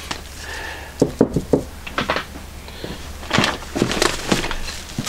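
Packaging being handled and torn open while heavy steel pipe-bender dies are unpacked: a run of sharp knocks and crackles, a cluster about a second in and another past the middle.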